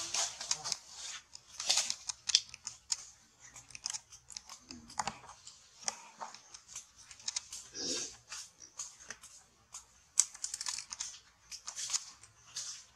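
Irregular crackling and clicking of monkeys scrambling over stone among dry leaves. A couple of brief, fuller sounds come about five and eight seconds in.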